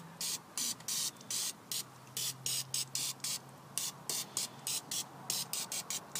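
Aerosol can of DeoxIT D5 contact cleaner, its valve set to low, sprayed through a thin straw in quick short hissing bursts, about three a second. It is dousing the pins of engine and transmission control module connectors to flush off corrosion.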